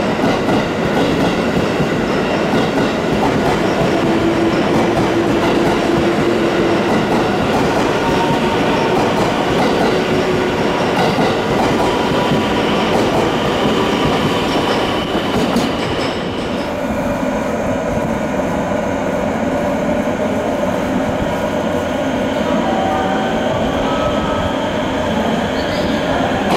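JR West electric commuter train running past along the platform, its wheels rumbling and clattering over the rails with a steady whine on top. About 16 seconds in, the passing train's noise drops away and a second electric train comes in, giving a quieter run of steady tones.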